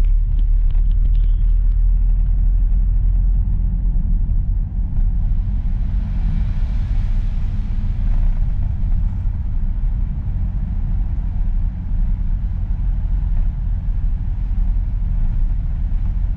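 Steady low rumble of a Mitsubishi Pajero driving, with a hiss that swells and fades about halfway through.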